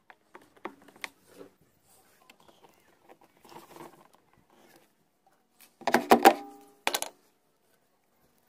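Light clicks and scrapes of a screwdriver and fingers working along the seam of a plastic washing machine tub. About six seconds in comes a loud clatter with a short ringing, and a second, shorter knock about a second later.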